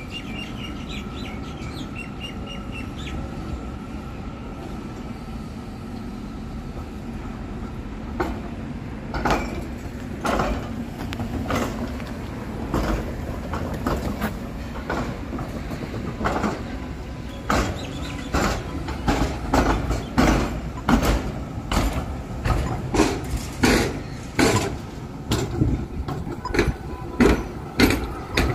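B2-class tram rolling past, its steel wheels clacking over rail joints and crossing gaps under a steady rumble. Single knocks begin about a third of the way in and become louder and more frequent, with repeated pairs of clacks as each bogie passes.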